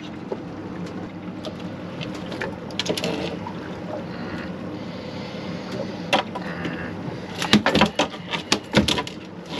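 A fish being handled on a fiberglass boat deck: scattered knocks and slaps, with a quick cluster of them near the end, over the boat's steady background hum.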